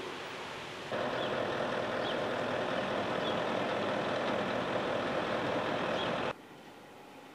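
Steady rushing outdoor background noise with a few faint short high chirps. It starts abruptly about a second in and cuts off abruptly near the end.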